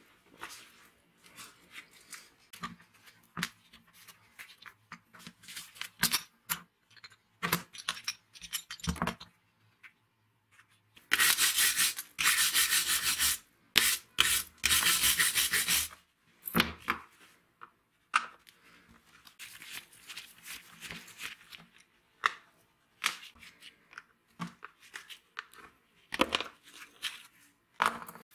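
Scattered clicks and knocks from handling the parts of a disassembled angle grinder. Partway through comes a run of long rasping strokes, lasting about five seconds, as a flat abrasive tool is scraped along the grinder's grimy plastic housing.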